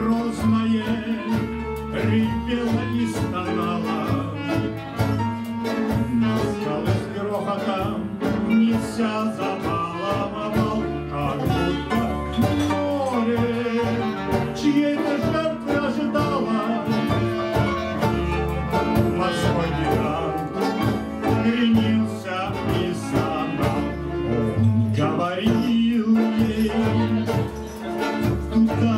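Live band playing a tango: clarinet over double bass and guitar.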